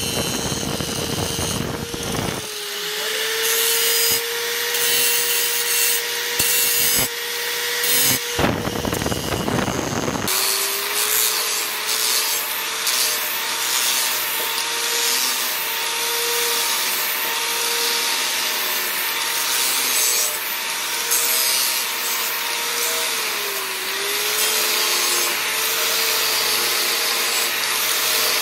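Electric angle grinder running steadily, its abrasive disc grinding the edge of a steel knife blade cut from a plough disc: a steady motor whine over a dense grinding hiss. The whine dips briefly in pitch near the end.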